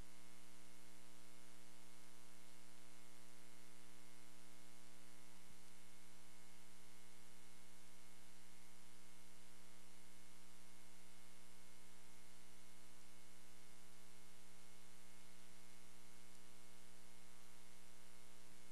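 Steady electrical hum and buzz under a constant hiss, with no other sound.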